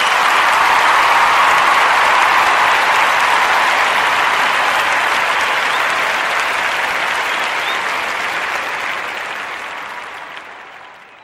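Audience applause, loudest at the start and then slowly fading out.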